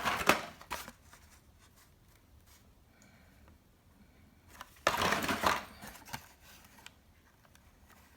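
Carded Hot Wheels blister packs being handled: two short bursts of plastic-and-cardboard rustling and clacking, one at the start and a louder one about five seconds in.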